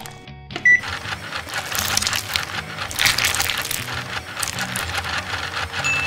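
Background music over a dense grinding, mashing noise from about a second in: a LEGO machine's motor-driven saw-blade heads crushing soft cream-filled bread cakes. A short high ding sounds just before the grinding starts.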